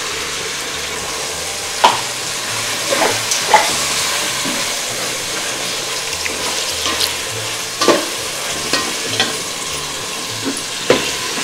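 Onion-tomato masala frying with a steady sizzle in an aluminium pot as ginger-garlic paste is stirred in. A metal slotted ladle scrapes and stirs, with several sharp clacks against the pot.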